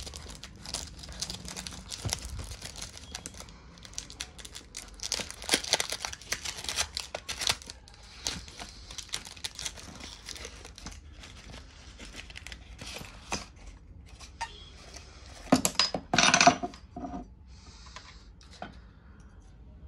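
Cardboard perfume box being opened by hand: paper and cardboard packaging tearing, crinkling and rustling, with many small clicks and scrapes as the bottle is worked out. A few louder knocks and scrapes come near the end.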